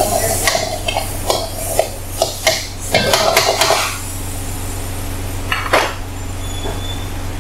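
Metal ladle scraping and knocking against a wok as beef is stir-fried, a quick run of strokes for about four seconds, then one more scrape near the end. A steady low hum runs underneath.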